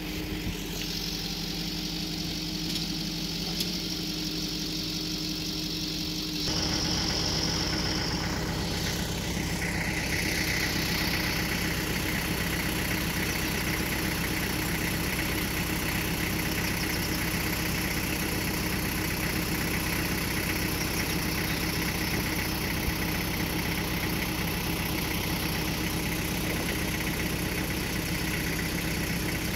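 A motor running steadily with a low hum, which grows suddenly louder and fuller about six seconds in.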